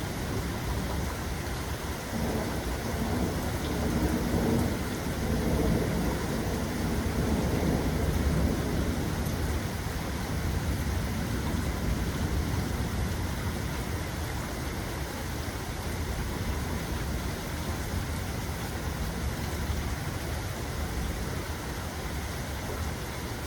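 Steady rain falling, with a low rolling thunder rumble that swells about two seconds in and fades away by about nine seconds.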